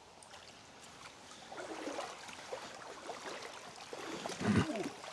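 Water of a small river flowing and gurgling, with a brief, low human voice sound about four and a half seconds in.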